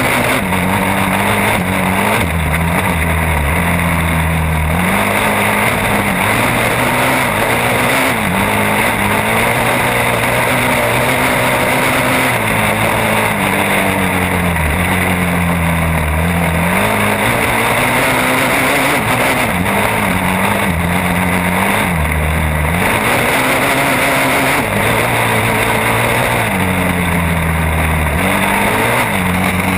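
Sport ATV engine ridden hard at high revs, the pitch climbing and dropping back again and again as the throttle is worked and gears change.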